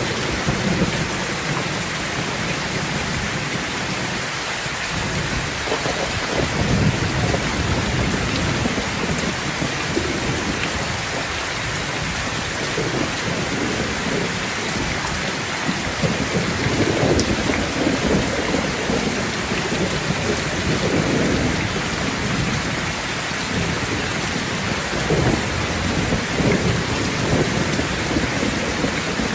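Thunderstorm: steady heavy rain with thunder rumbling low in repeated swells, loudest about a quarter of the way in, in the middle and near the end.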